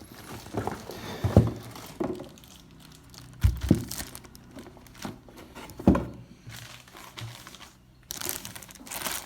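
Plastic packaging crinkling and rustling as a new orbital sander is taken out of its box, with a few dull knocks of the tool and box being handled and a louder burst of rustling near the end.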